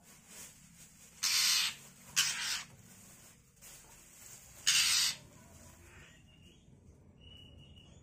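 Young Oriental magpie-robin giving three harsh, raspy calls, each about half a second long, then a faint short whistled note near the end: a juvenile calling out to other birds.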